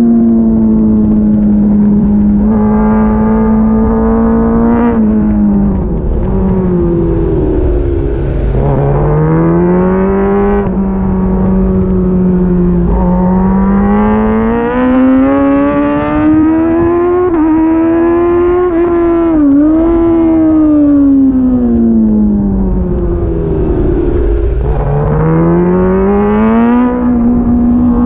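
Onboard sound of a sport motorcycle engine lapping a track at high revs. Its pitch holds steady, sinks as the bike slows for corners and climbs again as it accelerates, several times over.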